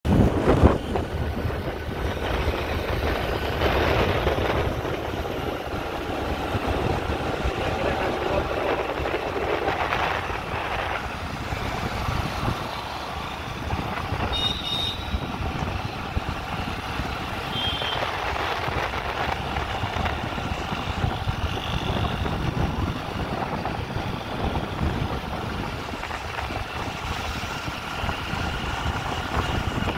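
Steady road and traffic noise heard from a moving vehicle: a continuous rumble of engine and tyres with wind. Two brief high beeps come about halfway through.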